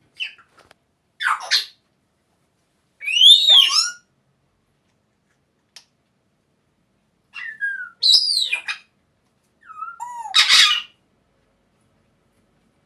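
African grey parrot calling: a string of separate calls mixing sliding whistles with harsh squawks, in about five bursts a second or two apart. The loudest is a rising-then-falling whistle about three seconds in.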